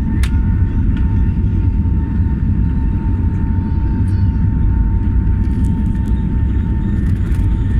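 Airplane engines running at climb power during takeoff: a loud, steady low rumble with a thin steady whine above it.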